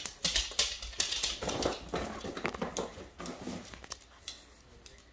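A miniature schnauzer's claws clicking on a hard floor as it walks about, the clicks thinning out over the last second or so as it comes to a stop.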